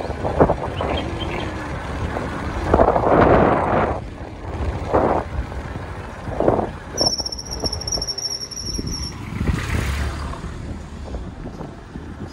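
Motorcycle ride: wind rushing over the microphone over the running engine, swelling in gusts several times. A thin high squeal sounds for about two seconds in the middle.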